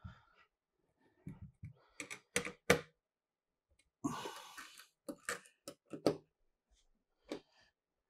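A screwdriver clicking and tapping on small screws and metal parts of a computer motherboard, in scattered single strokes with the sharpest click about two and a half seconds in. A short scraping rustle comes about four seconds in.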